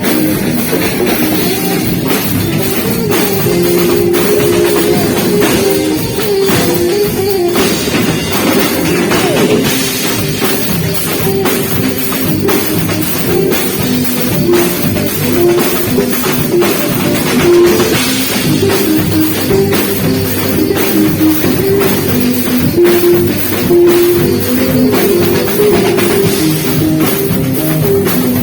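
Live band playing a Beiradão medley: a drum kit keeps a steady beat under a saxophone melody.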